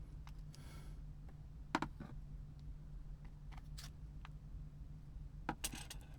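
Small sharp clicks and taps of a Blu-ray remote control being handled and worked on. The loudest are a pair of clicks about two seconds in and another cluster near the end, with a brief rustle under a second in and a steady low hum underneath.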